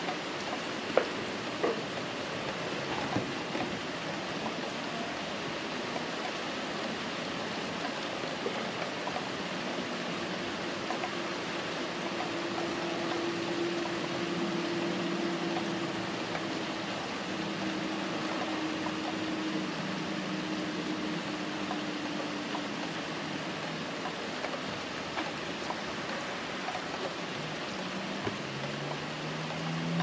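Heavy rain of a summer storm falling steadily, with a few sharp drip impacts in the first few seconds. A faint motor hum comes in through the middle and rises in pitch near the end.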